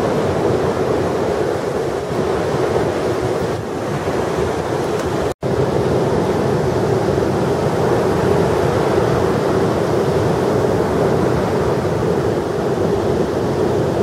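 Large storm-driven ocean waves breaking on a beach: a loud, steady wash of surf noise, with wind on the microphone. The sound cuts out for an instant about five seconds in.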